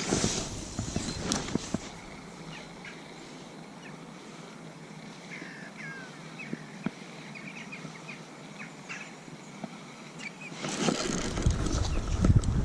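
Quiet outdoor background with a few short bird chirps about halfway through, then loud rustling noise on the microphone for the last two seconds.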